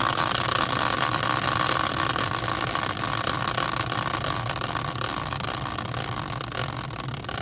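A hand-spun caster wheel on its metal bracket whirring on its axle, a dense whir with fine fast ticking that slowly fades as the wheel coasts down.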